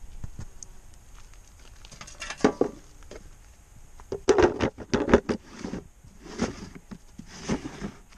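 Plastic lid being handled and fitted onto a plastic drum: irregular knocks and scrapes, the loudest cluster about four to five seconds in, with a few more near the end.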